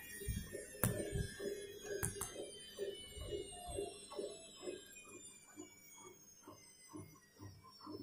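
Water sloshing and gurgling in a front-loading washing machine drum during a wash, in short pulses about two to three a second with low thumps. Two sharp taps come about one and two seconds in, and a faint high whine slowly falls in pitch throughout.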